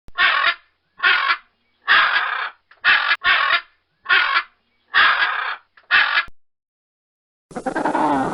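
An animal giving a series of harsh calls, about eight of them roughly a second apart, each lasting about half a second.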